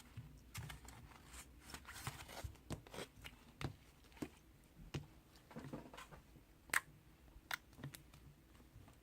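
Slime being squeezed and pressed by hand, giving an irregular run of sticky clicks and crackles, with one sharper pop about three-quarters of the way through.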